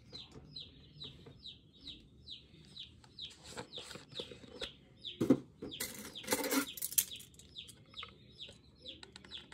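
A brood of day-old meat chicks peeping continuously, short high peeps sliding downward, several a second. About halfway through, a sharp knock and about a second of louder noise break in.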